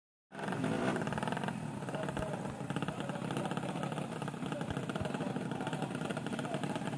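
Tuned 130cc four-stroke underbone drag bike engine running steadily, its firing pulses rapid and even. It starts abruptly just after the start.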